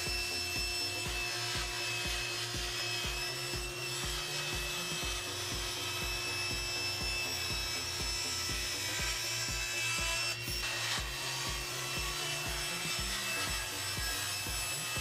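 Table saw running and ripping a large sheet of plywood as the panel is fed slowly through the blade: a steady, continuous cutting sound over the motor's even hum.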